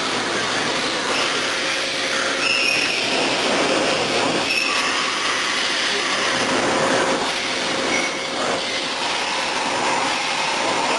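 Double-column CNC milling center cutting metal: a steady loud rush of machining noise with a few brief high-pitched squeals from the cut.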